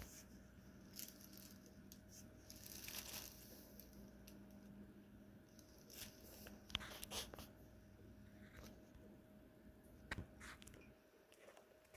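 Faint, scattered crinkling and rustling of a nylon pop-up cat tunnel as a cat shifts inside it, over a faint steady room hum.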